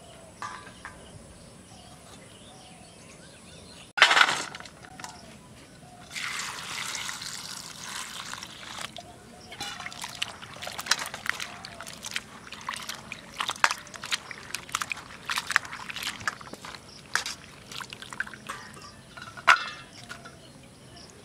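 Sliced bitter gourd being washed by hand in water in a steel bowl: a loud splash about four seconds in, then a long run of sloshing and splashing with small clinks as fingers stir the pieces.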